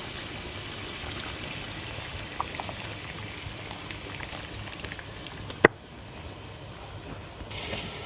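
Chicken soup in a pot bubbling on a high flame, the hot water just added, with scattered small pops. A sharp click a little past halfway, after which the bubbling is quieter.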